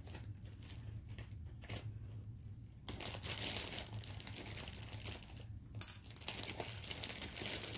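Plastic jewelry baggies crinkling as they are handled, faint at first and then louder and denser from about three seconds in.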